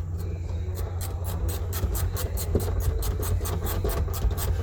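Quick rasping strokes of a tool working metal, about five or six a second, over a steady low hum.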